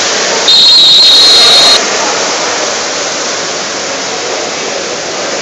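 A referee's whistle gives one long, high blast of a little over a second, about half a second in, over the steady echoing noise of an indoor pool hall: splashing water and distant voices.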